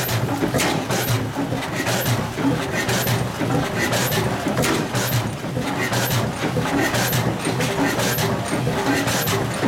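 60 hp Pattin Bros. Ekonomy stationary engine running with its compressors: a steady low rumble with sharp, regular beats about twice a second.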